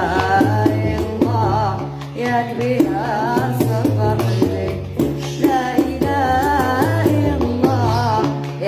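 Gnawa song: a girl's voice sings a wavering, ornamented melody over a guembri plucking a low, repeating bass line, with sharp percussive clicks through it.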